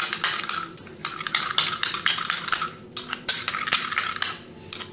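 A metal spoon beating yogurt in a small glass bowl: fast clinking and scraping against the glass, in runs with brief pauses between them.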